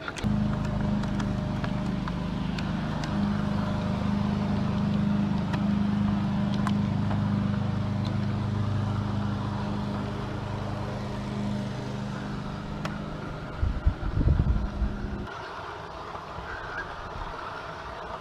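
Steady low motor hum with several stacked tones, with a cluster of heavy bumps about fourteen seconds in. The hum cuts off suddenly about a second later, leaving quieter running noise.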